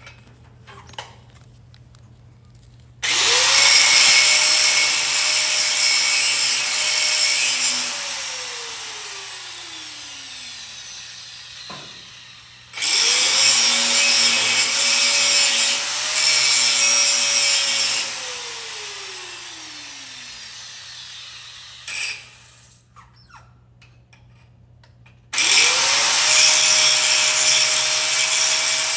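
Angle grinder run three times. Each time it spins up quickly and grinds a high weld bead down flush on a weld test coupon with a harsh hiss for several seconds, then winds down with a long falling whine. The third run starts a few seconds before the end and is still going.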